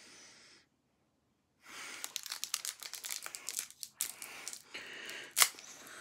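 Individually wrapped Toxic Waste sour candy's wrapper being torn open and crinkled, starting about one and a half seconds in as dense crackling with one sharp snap near the end.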